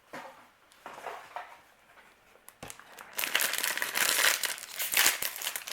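Plastic packaging crinkling as hands work open a blind-box figure's bag: a few soft rustles, then loud, continuous crinkling from about three seconds in.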